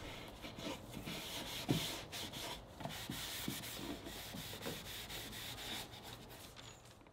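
Hand rubbing back and forth over a wooden surface, working in a tung oil finish. The scratchy rubbing grows gradually fainter and dies away near the end.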